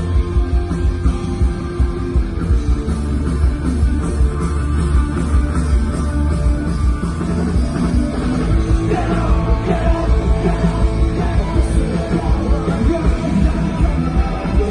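Live rock band playing through a concert PA, with a heavy drum and bass beat under the guitars and keyboards; a voice starts singing over it about nine seconds in.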